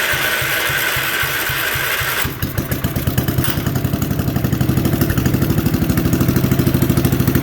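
Engine cranked by an electric starter with slow, even pulses under a whine, catching about two seconds in and then running with a fast, steady beat.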